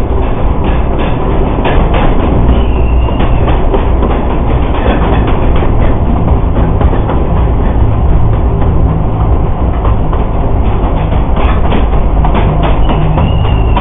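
Narrow-gauge forest railway train heard from aboard inside a tunnel: a loud, steady rolling rumble with irregular clicks of the wheels over the rail joints. Two brief high wheel squeals come about three seconds in and near the end.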